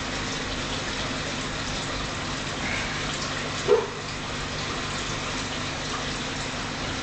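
Steady running water of an aquarium filter, with the low hum of its pump underneath. A brief louder blip about three and a half seconds in.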